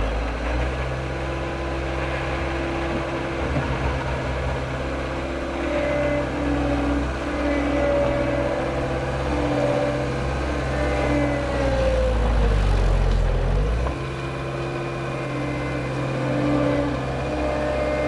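Bobcat 863 skid steer's turbocharged diesel engine running steadily as the machine drives and turns, with a whine over it that wavers in pitch. About ten seconds in the whine slides down and the engine grows louder under load. Then, near fourteen seconds, the load drops off suddenly.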